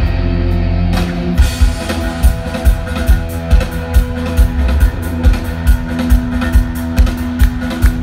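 Live rock band playing an instrumental passage through a festival PA: distorted electric guitars and bass guitar, with the drums coming in about a second and a half in on a steady driving beat.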